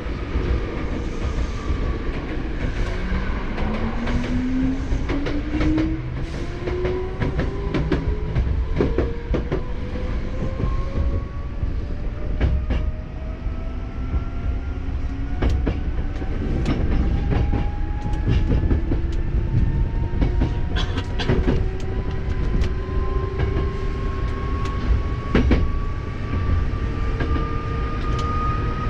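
Hankyu 7000-series electric train accelerating, heard from on board: its motor whine climbs slowly in pitch as it gathers speed, over a steady running rumble with scattered clicks from the wheels on rail joints.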